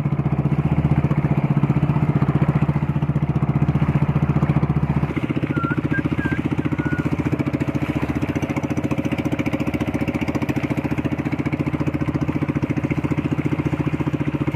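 Small wooden fishing boat's engine running steadily under way, a fast even throb. About five seconds in the sound changes abruptly to a lighter tone and runs on; a few brief high chirps come just after the change.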